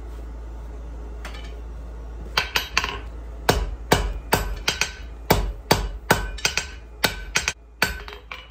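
Hand hammer striking red-hot steel bar stock on an anvil to draw it out: a string of sharp blows, each with a short ring. The blows start about two seconds in and then come at roughly three a second.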